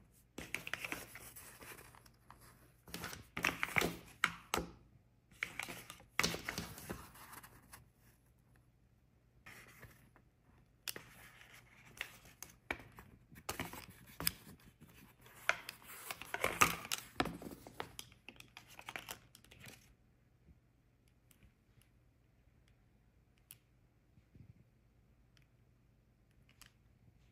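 Hands unboxing a pair of glasses: a cardboard box, soft pouch and wrapping rustling and scraping in irregular bursts, with a few sharper clicks. After about twenty seconds only a few faint clicks remain.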